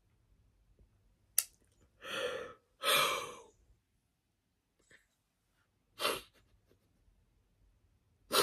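A person's breathy sighs and sniffs: a few short, separate breaths a second or more apart, with a small click just before the first.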